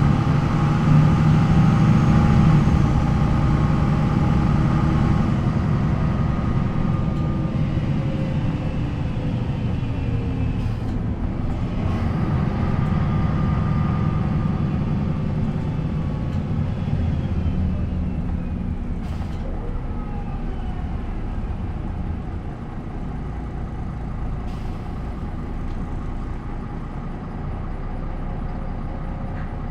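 A MAN NL 263 city bus's D28 six-cylinder diesel running under way, its pitch shifting and sliding down several times as the ZF Ecomat automatic works through its gears. The engine eases off over the second half, with a few short clicks.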